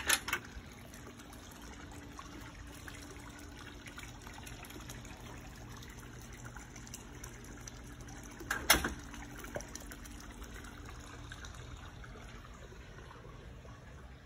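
Steady trickle of water from the saltwater pool, with a few sharp clicks at the very start and one louder click a little under nine seconds in.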